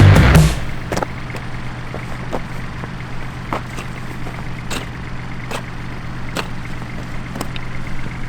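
Background music cuts off about half a second in. Then an engine runs steadily with a low hum, and sharp clicks come about once a second.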